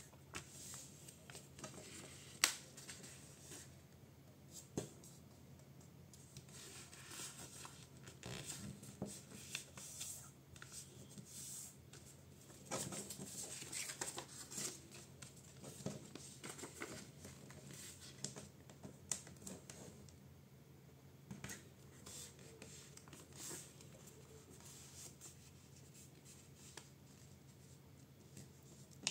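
A sheet of paper being folded by hand into a paper airplane: faint rustling and crinkling as fingers press and run along the creases, with scattered light clicks. A sharp crinkle comes a couple of seconds in, and the rustling is busiest in the middle stretch.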